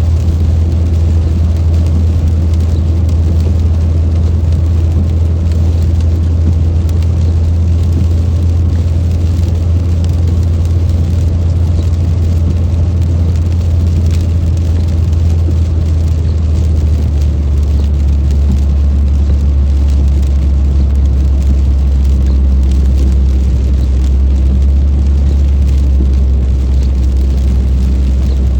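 A car driving in heavy rain: a loud, steady low drone of engine and road noise that settles slightly lower about halfway through, over a faint hiss and patter of rain.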